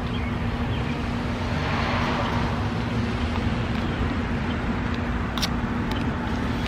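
Steady outdoor background rumble with a constant low hum, and a single brief click about five and a half seconds in.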